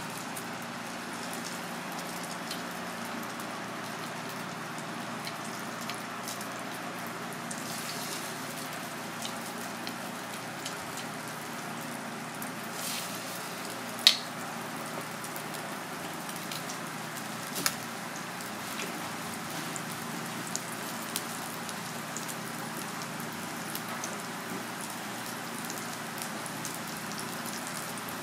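Egg-battered batfish fillets shallow-frying in hot oil in a pan: a steady sizzle with scattered crackles and pops, and one sharp pop about halfway through.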